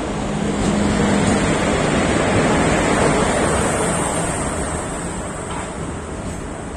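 WAP-4 electric locomotive and the coaches behind it running past close by as the train arrives at the platform. A loud, steady rumble and rush of wheels on rail swells about a second in as the locomotive passes, then eases off as the coaches follow. A steady low hum shows in the first second or so.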